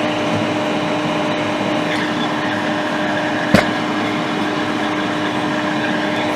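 Steady whirr of an electric fan or blower at the repair bench, with a low hum tone, broken once by a sharp click about three and a half seconds in.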